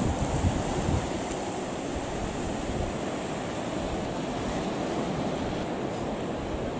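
Sea surf washing on the beach, a steady rush with no break.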